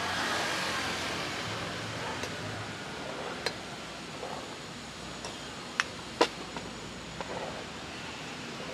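A handful of sharp clicks and clinks of glass clip-top topping jars being handled, opened and closed, the loudest a little after six seconds in, over a steady background of street noise.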